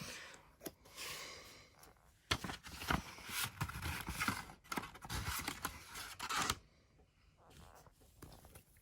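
Rustling and crinkling of paper and plastic packaging with light clicks and taps as album inserts and photo cards are handled, dying down about six and a half seconds in.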